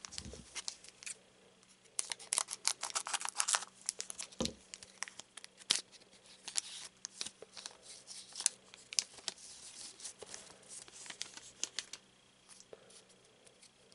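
Foil booster pack wrapper being torn open and crinkled by hand as the cards are pulled out: an irregular run of crackles and rustles, with one low thump about four and a half seconds in.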